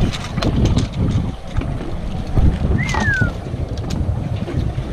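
Wind buffeting the microphone over the noise of a boat on open water, with scattered clicks. A brief falling whistle-like tone sounds about three seconds in.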